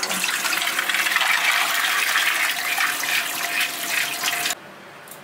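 Water pouring and splashing into a stainless steel colander in a steel sink as soaked dried corn kernels are strained. It cuts off suddenly about four and a half seconds in.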